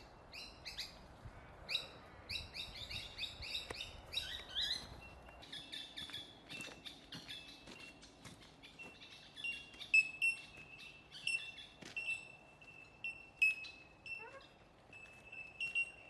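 Birds chirping: a quick run of mixed chirps, then a single short high note repeated about once or twice a second.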